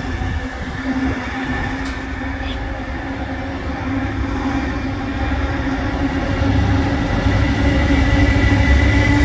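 Diesel freight locomotive approaching with its engine running in a steady low drone. It grows louder over the last few seconds as it draws near.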